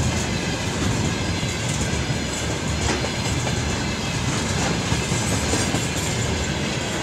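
Freight train of rail tank cars rolling past close by: a steady rumble of wheels with clickety-clack over the rail joints.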